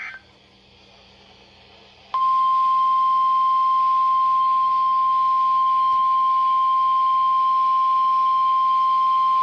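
Emergency alert tone: a single steady high tone, the NOAA Weather Radio 1050 Hz warning alarm tone that precedes a severe thunderstorm warning. It comes on sharply about two seconds in, after the tail of the chirping data header and a moment of faint radio hiss.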